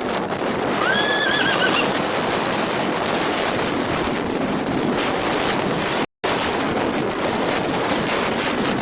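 Steady rushing roar of tornado wind. About a second in comes a brief, high, wavering cry that rises and then falls. The sound cuts out for an instant about six seconds in.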